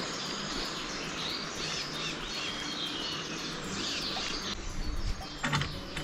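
Woodland birds singing, several short high chirps and warbles over a steady hiss, with a few soft knocks near the end.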